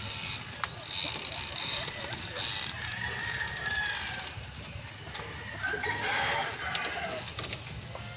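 Gamefowl chickens calling: hens clucking, with a rooster crowing among them.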